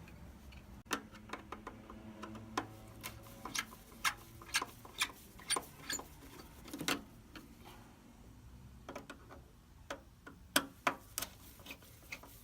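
Clicks and taps of a hand tool as screws are taken out of the front turn signal and light housing of a Ford E150 van. For a stretch the clicks come about twice a second.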